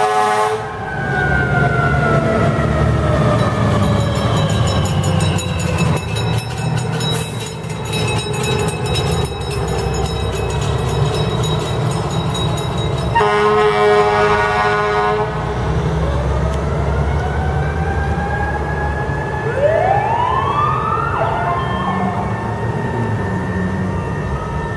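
Fire engines passing in procession with engines running: a loud air-horn blast at the start and another about halfway through, and sirens winding down in slowly falling tones. Near the end a siren winds up in a sharp rising wail.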